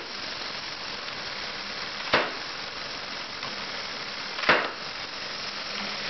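Model pile driver's hammer dropping onto the steel cap of the pile twice, about two and a half seconds apart, each a sharp knock. Under it runs the steady hiss of the small horizontal steam engine driving the chain, running at about half throttle.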